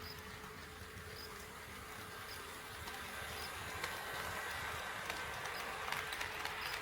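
HO scale model train running on KATO Unitrack: a steady electric motor whine with the wheels clicking over the rail joints. It grows louder about halfway through as the train comes closer, and the clicks come more often near the end.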